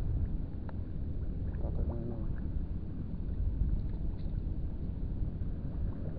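Low, gusting rumble of wind buffeting the microphone, over open-air harbour ambience.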